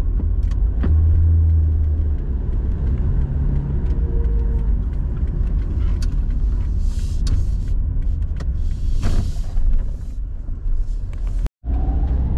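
Car cabin noise while driving on a wet road: a steady low engine and tyre rumble, with two brief hissing swells about seven and nine seconds in. The sound drops out completely for a split second near the end.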